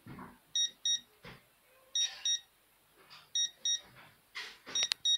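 SOEKS Impulse EMF indicator sounding its over-limit alarm: pairs of short high beeps, about one pair every second and a half, warning that the electric field from a plugged-in phone charger exceeds the permitted norm. Brief rustling noises fall between the beeps.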